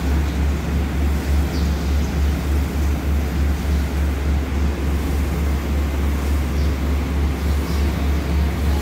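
Diesel engine of a stationary passenger train running at idle: a steady low drone that pulses slightly.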